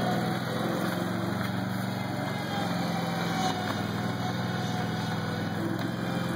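Engine of a 2003 Terramite compact backhoe running steadily at an even speed.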